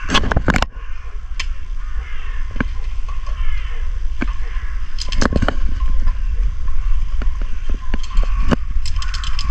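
A steady low rumble of wind on the microphone, with scattered sharp clicks and knocks at irregular intervals.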